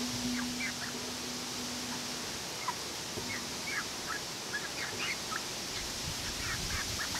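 Backyard hens making short, soft high chirps and calls, scattered irregularly, some sliding up or down in pitch. A steady low hum runs under the first couple of seconds.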